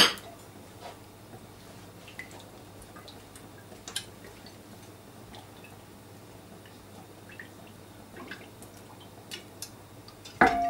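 Olive oil poured from a glass bottle into cast-iron skillets: a quiet trickle with faint drips and ticks. A sharp click at the outset, and a louder clink with a brief ring near the end.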